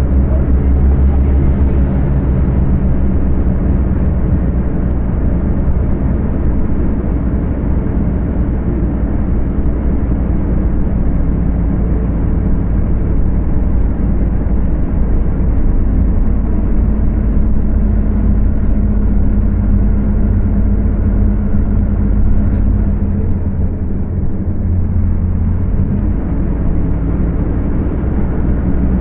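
Scania K250UB city bus diesel engine running at high revs while under way, recorded on a phone. The engine note shifts as it pulls, easing off briefly about two-thirds of the way through and then picking up again.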